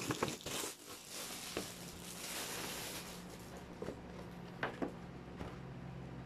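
Clear plastic wrapping crinkling and rustling as a plastic face shield is unwrapped and handled, with two sharp clicks a little over halfway through.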